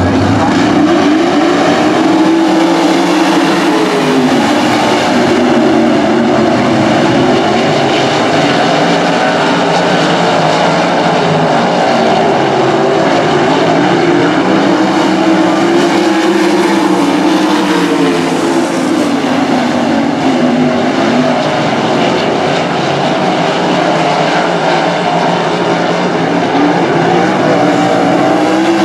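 A pack of winged sprint cars' V8 engines racing on a dirt oval, a continuous loud blare whose pitch rises and falls in waves as the cars get on and off the throttle through the turns.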